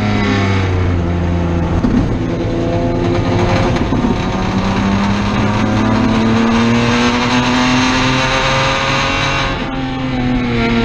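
Race car engine heard from inside the cockpit. The revs fall over the first couple of seconds, then climb steadily through a long pull. Near the end the revs and level drop briefly before they climb again.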